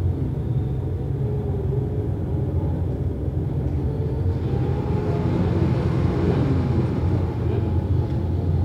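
Several winged dirt-track mini sprint cars with 600cc motorcycle engines running together at low speed, a steady low rumble with a few engine notes rising and falling partway through.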